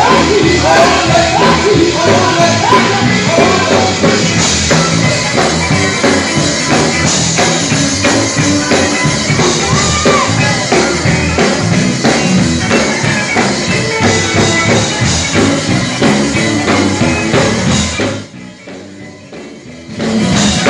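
Gospel vocal group singing with band accompaniment. The music drops away sharply about 18 seconds in, then comes back loud briefly near the end.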